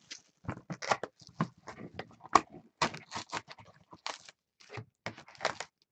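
A trading-card hobby box and its wrapped packs handled by hand: irregular crinkling, rustling and short tearing noises, with a few sharper clicks.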